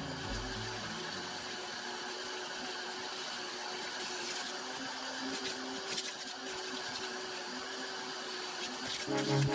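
Vacuum cleaner running steadily with a crevice tool on its hose, sucking dirt and sand from a pickup truck's rear carpet, with a faint steady hum and a few short clicks about six seconds in.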